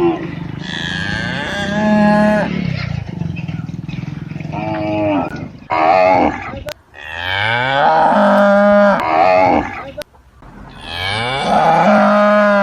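Cattle mooing: a run of about five loud, drawn-out moos one after another, several rising in pitch as they begin.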